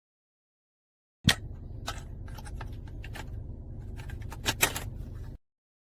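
Clicks and light metallic rattles of a radio mounting bracket and its screws being handled and fitted, over a low rumble. It cuts in about a second in with a sharp click, has a burst of clicks near the end, and cuts off abruptly.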